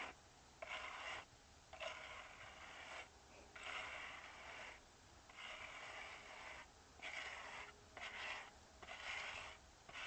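Rhythmic scraping of a hand tool worked back and forth over a rough surface, about eight strokes, each half a second to a second long, with short pauses between.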